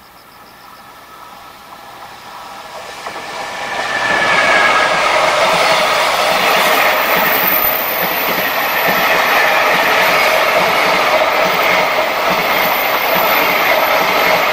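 A JR Freight EF210 electric locomotive drawing nearer, its sound building over the first four seconds, then a container freight train of largely empty flatcars rolling past close by with a steady, loud rumble of wheels and clickety-clack over the rail joints.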